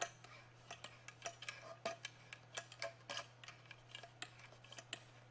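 Faint, irregular metal clicks, about three a second, as a screwdriver pushed through the eye of an eye bolt is turned to tighten the bolt into a barrel nut in a cedar log swing bar.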